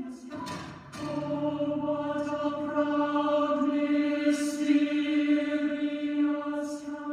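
A voice singing one long held note in a chant-like way for about six seconds, with two short hisses partway through.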